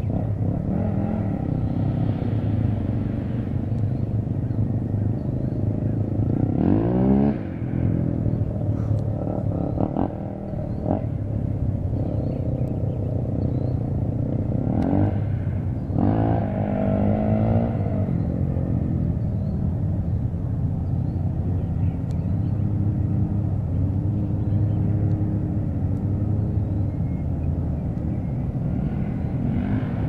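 Motor vehicle engine running with a steady low rumble, swelling twice with a rising pitch, about seven and sixteen seconds in.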